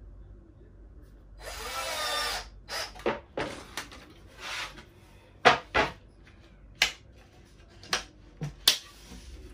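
Cordless drill driving screws through metal hinges into a plywood panel: one run of about a second, then several shorter bursts. After them come several sharp knocks and clacks.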